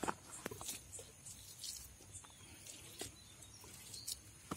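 Faint, scattered small clicks and scrapes from hands handling a freshly scaled fish on a wooden board strewn with loose scales.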